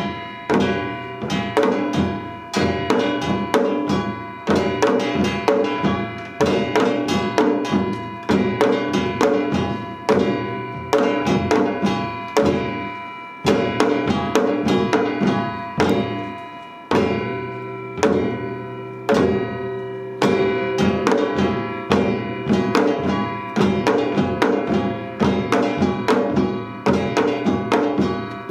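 Seated samul nori ensemble of janggu hourglass drums, buk barrel drums and gongs playing a Yeongnam rhythm: dense, regular drum strokes with accented beats under steady metallic ringing.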